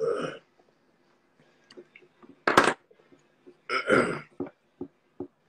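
A man's short mouth and throat sounds in a pause between words: a brief, loud burp-like sound about two and a half seconds in, a longer breathy sound about a second later, and a few faint lip clicks.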